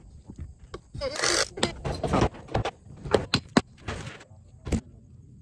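A run of sharp knocks, rattles and clatters with a scraping rustle about a second in: hands and hardware at work on a goat feeder being rebuilt with screws.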